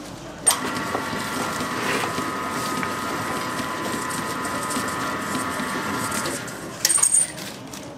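An electric commercial food-prep machine's motor starts with a click about half a second in and runs with a steady whine for about six seconds, then stops. Near the end come a few loud clattering knocks.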